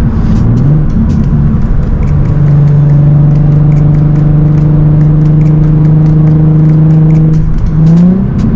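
Nissan 350Z HR's 3.5-litre VQ35HR V6 through a straight-piped Tomei exhaust, heard from inside the cabin while driving. It holds a steady drone for several seconds, then the revs rise sharply near the end.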